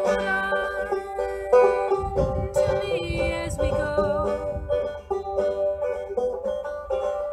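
Banjo strummed and picked in a steady chord accompaniment, with a woman singing along. A low rumble sits under the music for a couple of seconds in the middle.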